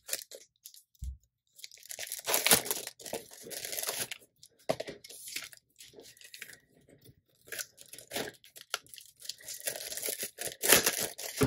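Clear plastic packaging sleeves crinkling and tearing in irregular bursts as they are handled and opened, loudest about two and a half seconds in and near the end. A brief soft thud about a second in.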